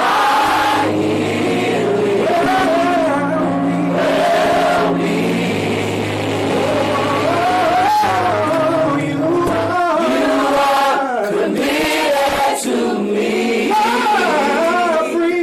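Gospel choir singing, with sustained low bass notes underneath that drop out about ten seconds in, leaving the voices.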